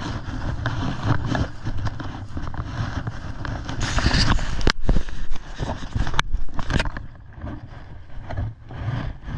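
Footsteps swishing and crackling through tall dry grass, with wind rumbling on the microphone. A few sharp clicks come about halfway through, and the rustling eases off near the end.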